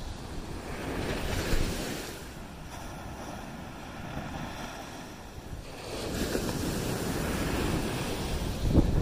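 Ocean surf breaking and washing up the beach, swelling about a second in and again about six seconds in, with wind rumbling on the microphone.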